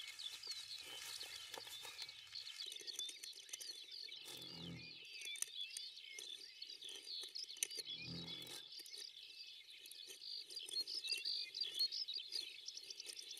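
Faint birdsong of many short chirps and twitters from several birds, with two soft low rumbles about four and eight seconds in.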